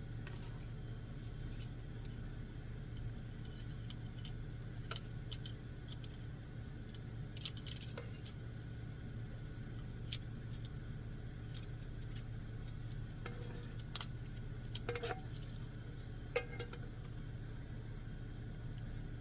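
Utensils clinking and scraping against dishes and a pan as food is served: scattered light clicks with a few sharper clinks, over a steady low hum.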